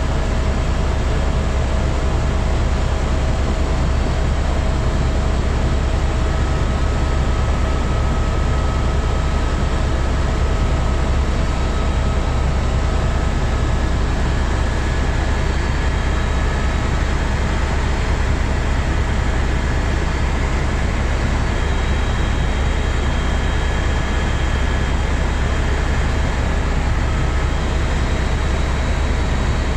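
Helicopter cabin noise in flight: a loud, steady drone of rotor and engine with a deep low rumble and a few faint steady whining tones above it.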